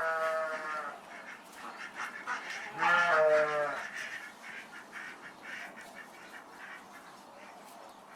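Two long pitched calls from a farm animal, each just under a second, about three seconds apart, with faint scattered background sounds between.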